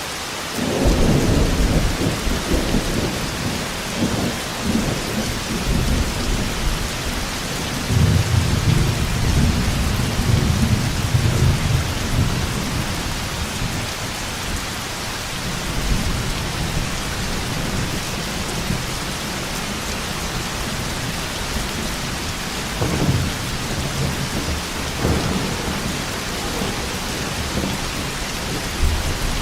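Heavy rain falling steadily with rolling thunder: a deep rumble begins about a second in, a longer loud roll follows around eight seconds, and a couple of sharper cracks come near the end.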